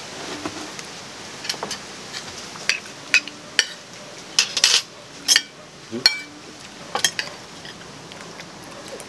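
Metal spoons and forks clinking and scraping against ceramic plates and a soup bowl during eating: a string of sharp, irregular clinks, a dozen or more, closest together in the middle.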